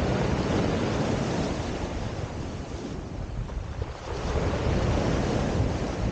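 Sea surf breaking and washing over a pebble beach, with wind buffeting the microphone; the wash eases a little past the middle and swells again with the next wave.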